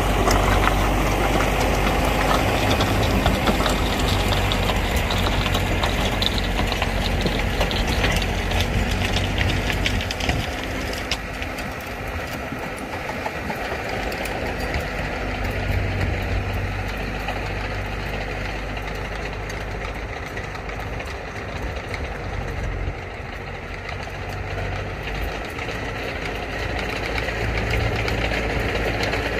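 Farm tractor's diesel engine running a rotary tiller that churns the soil. Loudest at first, the sound fades after about ten seconds as the tractor moves away, leaving a steady low engine hum.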